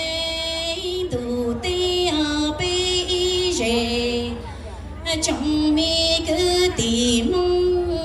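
A woman singing Hmong kwv txhiaj, traditional sung poetry, into a microphone over a sound system. She holds long notes that step up and down in pitch, with a brief lull about halfway through.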